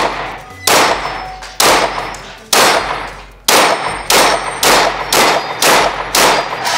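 Glock pistol fired in a string of about ten shots, echoing in an indoor range. The first few come about a second apart, then the shots quicken to about two a second.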